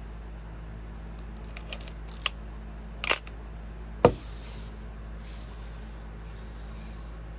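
Pentax K1000 35mm SLR body working mechanically. A few small clicks come first, then a short ratcheting stroke of the film advance lever about three seconds in. About a second later the shutter fires with one sharp, loud mirror-slap click, followed by soft handling noise.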